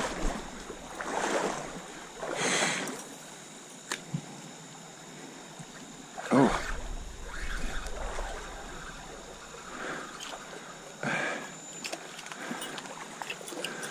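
Water in a trout stream running, broken by several short splashes, the loudest about six seconds in.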